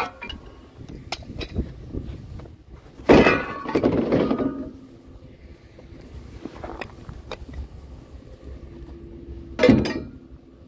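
Hard objects being handled and knocked about: a short knock, then a louder rattling clatter about three seconds in that rings briefly, and another knock near the end.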